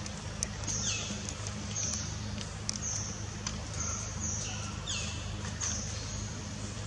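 Infant long-tailed macaque giving a string of short, high-pitched squealing cries, some falling in pitch, about one every 0.7 seconds: distress calls of a baby refused nursing by its mother. A steady low hum runs underneath.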